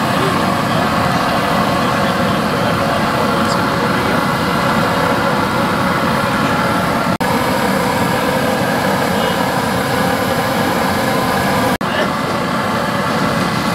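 Fish pieces frying in a shallow pool of hot oil on a large street-vendor's tawa: a loud, steady sizzle that cuts out briefly twice.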